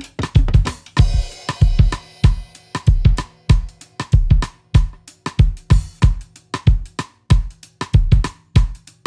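Background music with a steady drum-kit beat: bass drum, snare and hi-hat, with a held chord from about one to three seconds in.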